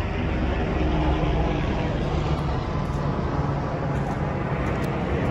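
Steady low rumble of idling vehicles and street traffic.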